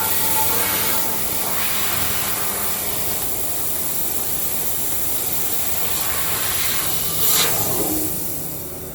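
CNC turret punch and laser cutting machine running, with a steady loud hiss typical of the laser head's assist gas and extraction. It swells to a louder rushing burst about seven seconds in, then eases off near the end.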